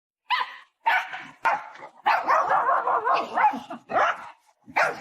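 A dog barking in a series of short barks, with a longer unbroken run of vocalising in the middle.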